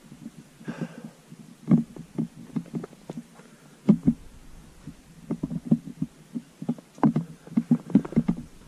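Footsteps tramping through deep snow: irregular dull thuds, about two a second, coming faster near the end.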